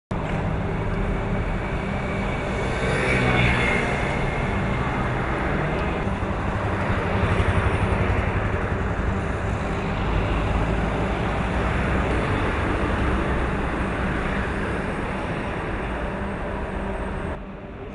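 City street traffic, vehicles passing in a steady wash of noise, with indistinct voices mixed in. It drops off suddenly near the end.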